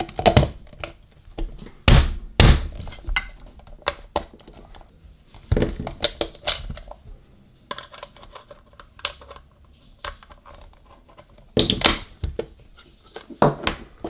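Plastic housing of a coffee grinder being handled and fitted back together: scattered knocks, clicks and thunks, the loudest about two seconds in and near the end.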